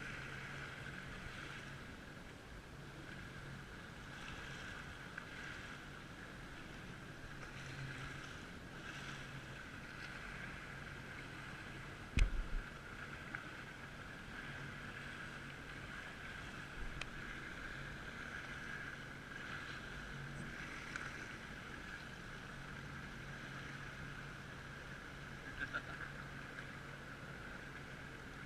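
Jet ski engine running steadily at low speed, with one sharp knock about twelve seconds in.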